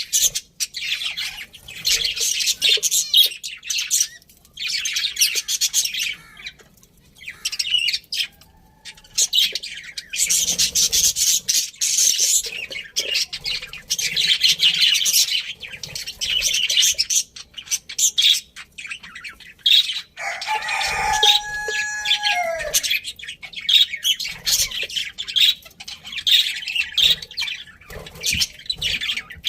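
Budgies chattering and chirping in bursts of fast, high warbling, with short pauses between. About twenty seconds in, a lower, drawn-out call with a clear pitch lasts two to three seconds.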